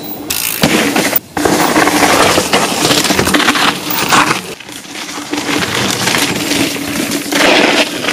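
Mountain bike tyres crunching and rattling over a loose gravel and dirt trail as the bike rolls past close by, with a brief drop-out about a second in.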